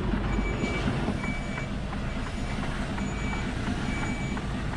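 An articulated lorry's reversing alarm sounding a steady run of short, high beeps while the truck backs up. Under it the lorry's diesel engine runs with a low rumble.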